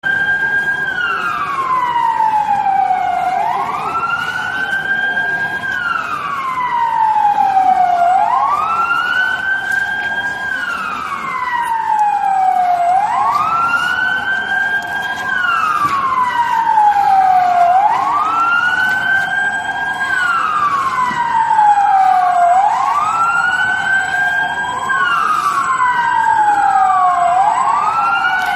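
Ambulance siren wailing: a loud tone that rises quickly, holds at the top, then falls more slowly, repeating in slow even cycles about every five seconds.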